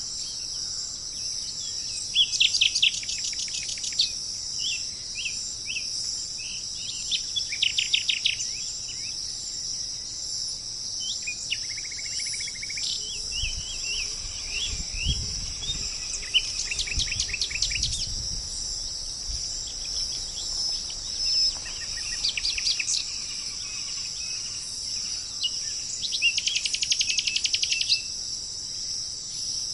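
A songbird repeats short phrases of rapid chirping notes every few seconds over a steady high-pitched chorus of insects, like crickets. A low rumble comes in for a few seconds midway.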